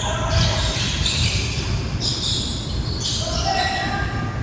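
Basketball game on an indoor court: the ball being dribbled, with players' voices in the background.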